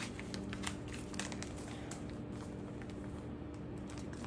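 Paper seed packets and the plastic sleeves of a binder crinkling and rustling as packets are pulled out and pages are turned. There are clusters of small crackles in the first couple of seconds, thinning out after.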